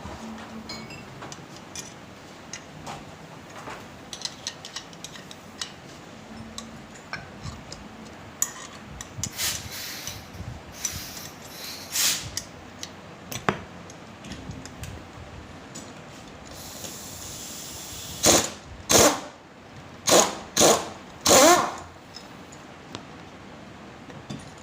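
Workshop tool sounds on a car's air-suspension shock absorber being taken apart: light clicks and clatter, a short hiss, then five loud, short bursts of a power tool near the end.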